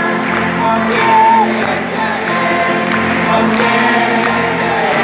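Live Christian praise music: an electronic keyboard playing while a worship leader sings into a microphone, with many voices singing along.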